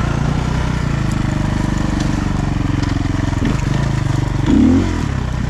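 Off-road motorcycle engine running steadily as it is ridden along a narrow dirt trail, with a short louder burst about four and a half seconds in.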